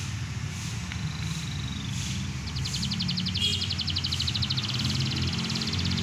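Caged canaries singing: a thin, slightly falling whistle about a second in, then a fast, evenly paced trill of high notes from about halfway through. A steady low rumble runs underneath.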